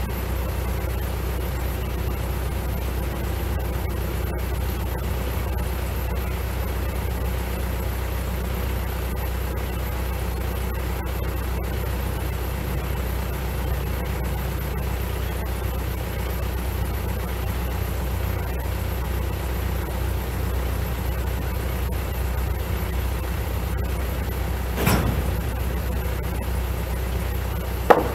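Kubota L4701 tractor's four-cylinder diesel engine idling steadily, a low even hum, with a single knock near the end.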